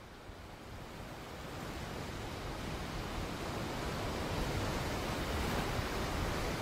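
A steady rushing noise, surf-like, that swells louder throughout.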